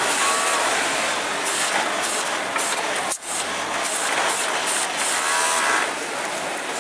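Industrial overlock machine (serger) running in spells as fabric is fed through it, over a steady background din. The sound dips briefly about three seconds in.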